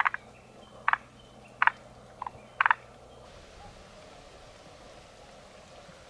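Forest green tree frog (Zhangixalus arboreus) calling: a run of five short croaks over about three seconds.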